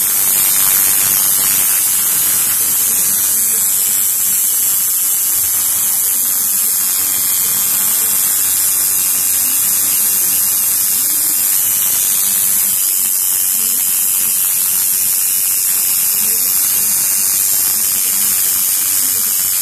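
Electric tattoo machine buzzing steadily as it inks skin, under a loud, even hiss.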